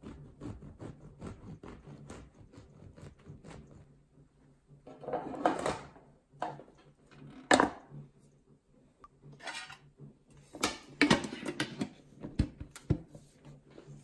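Serrated bread knife sawing through a crusty loaf on a wooden board in a quick run of strokes. Then rustling and sharp metallic knocks as the slices go into a metal bread tin and it is handled and closed; the loudest knocks come about halfway through and again a few seconds later.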